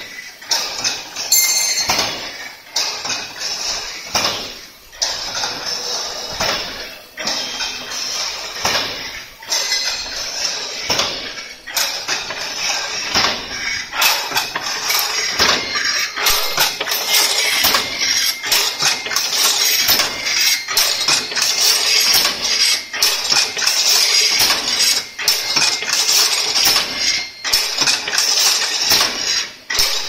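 Crimped wire mesh weaving machine running: a continuous, rapid metallic clatter of the loom as it weaves crimped wire into mesh, growing steadier and a little louder about halfway through.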